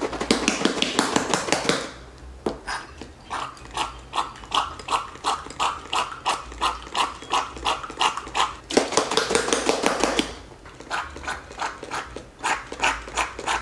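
A foaming soap pump bottle used as a coffee frother: it is shaken, then pumped rapidly over and over, about three short squirting strokes a second. It is shaken again about nine seconds in and then pumped again, working froth into the coffee.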